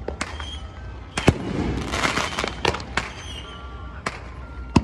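Fireworks going off: a string of sharp bangs, the loudest about a second in, followed by about a second of dense crackling, then more bangs near the end.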